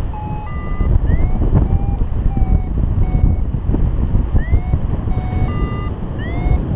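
Paragliding variometer beeping about twice a second in short tones of changing pitch, some sliding upward, the audio signal that the glider is climbing in lift. Steady wind noise on the microphone runs underneath.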